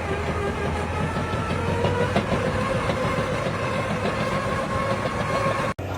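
A bulldozer working: a steady engine with a rattling clatter and a high whine over it, cut off abruptly near the end.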